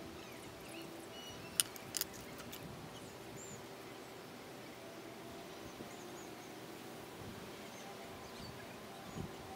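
Quiet outdoor ambience: a steady low hum with a few faint bird chirps, and two light clicks about one and a half to two seconds in.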